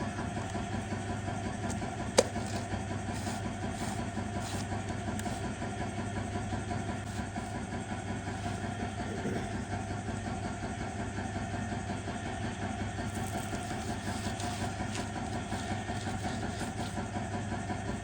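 Car engine idling steadily, with one sharp click about two seconds in.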